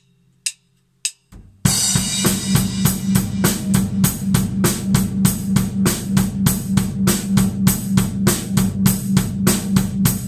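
A few sharp stick clicks counting in, then a full acoustic drum kit (snare, bass drum and cymbals) playing a steady groove of about four strokes a second, starting abruptly about a second and a half in.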